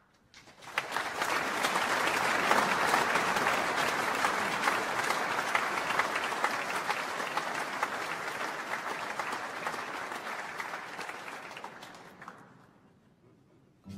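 Audience applauding: the clapping swells up quickly about a second in, holds, then dies away near the end.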